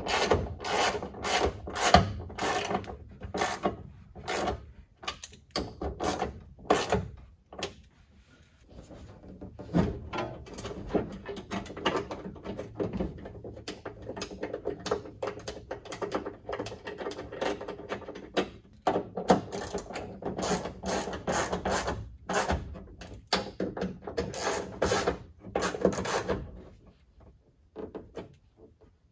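Ratchet wrench clicking in quick runs as the trunk deck lid's hinge bolts are tightened. There is a short lull about eight seconds in and again near the end.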